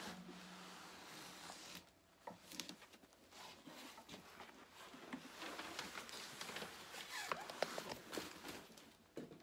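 Plastic packing wrap rustling and crinkling as it is pulled off and handled, with scattered small crackles.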